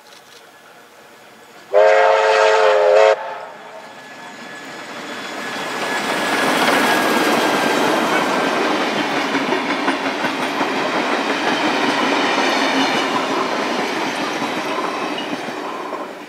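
Steam locomotive 3237 sounds one whistle blast of about a second and a half, a chord of several tones, as it approaches. Its train then runs past: wheels clattering on the rails, building up, running steadily as the carriages go by and fading away near the end.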